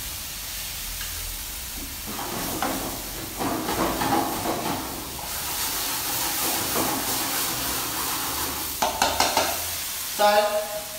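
Food sizzling and frying in a hot pan over a gas burner, stirred with a utensil that knocks and scrapes against the pan now and then.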